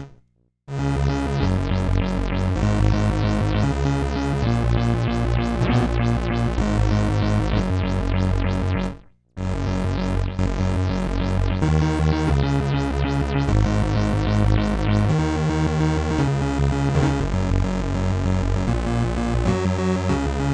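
Crumar Stratus synthesizer playing sustained chords, the sound pulsing rapidly and evenly, several times a second, from its LFO modulation routed to the filter. The sound cuts out briefly about 9 seconds in, and the pulsing stops about 15 seconds in, leaving steady chords that change every second or two.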